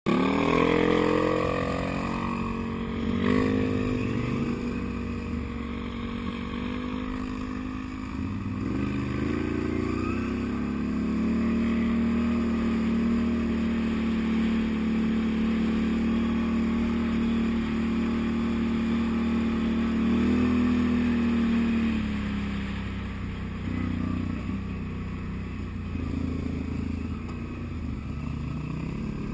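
Can-Am Outlander ATV engine running under throttle while riding. It revs up at the start, changes pitch a few times and holds a steady drone for about ten seconds in the middle, then eases off and varies near the end.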